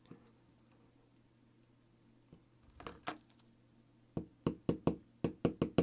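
A small hammer tapping on a chain jig held in a bench vise, closing the tiny pins of a 1:12 scale metal model chain: a quick run of light metallic taps, about four a second, starting about four seconds in. Just before it, a brief clink of small metal parts being handled.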